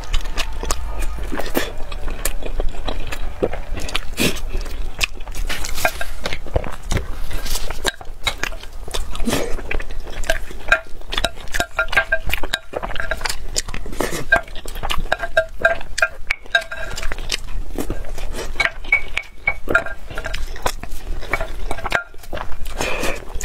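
Close-miked eating: a wooden spoon scooping rice and clinking against a glass bowl in many short taps, some with a brief ring, mixed with chewing and mouth sounds.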